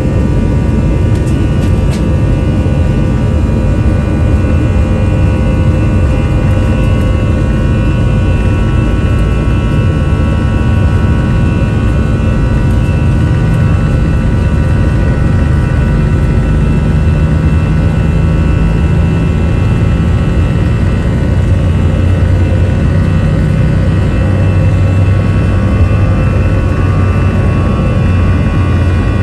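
Jet aircraft engines running at high power during a roll down the runway: a loud, steady roar with several whining engine tones over a deep rumble, the rumble growing stronger in the second half.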